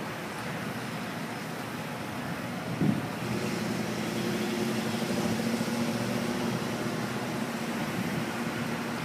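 An engine's steady low hum that sets in with a thump about three seconds in and then runs on, over a constant rushing background.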